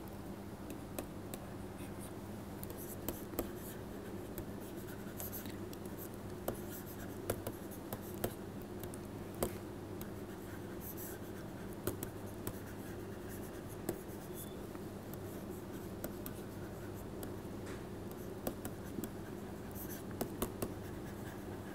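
Pen stylus tapping and scratching on a tablet screen while handwriting, irregular small clicks, over a steady low hum.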